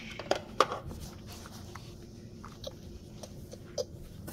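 Scattered light clicks and taps with soft rustling as small plastic toy figures and a blanket are handled, over a faint steady room hum.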